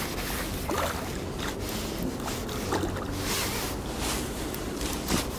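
A hooked fish splashing and thrashing at the surface of the water as it is played toward the landing net, with irregular splashes.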